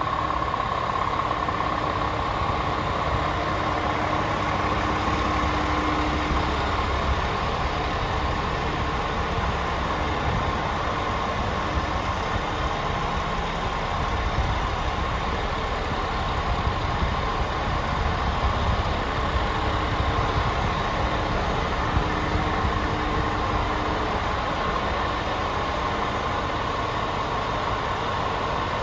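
Scania R450 tractor unit's 13-litre Euro 6 straight-six diesel idling steadily.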